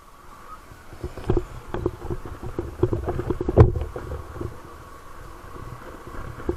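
Motorcycle riding over rough, bumpy dirt: a low rumble with repeated irregular knocks and jolts of the bike and its camera mount, starting about a second in, with one sharp bang about three and a half seconds in.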